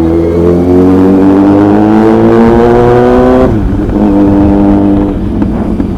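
Sport motorcycle engine accelerating, its pitch climbing steadily for about three and a half seconds, then dropping sharply at an upshift and pulling on at a steadier pitch.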